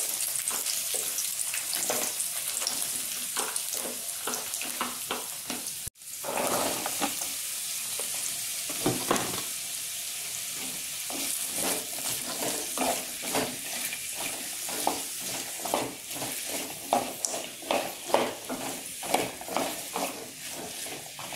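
Sliced onions, carrots and green beans sizzling in hot oil in a kadai, with a wooden spatula scraping and knocking against the pan as they are stirred. The stirring strokes come quicker and louder in the second half, and the sound drops out for an instant about six seconds in.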